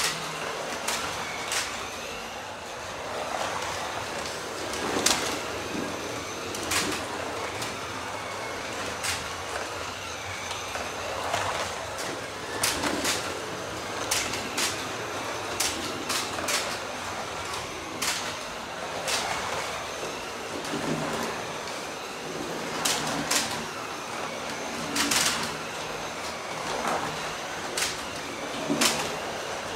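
Carrera Digital 124 slot cars running on plastic track: a steady rolling hum that swells and fades as cars pass, with frequent sharp clicks and clacks.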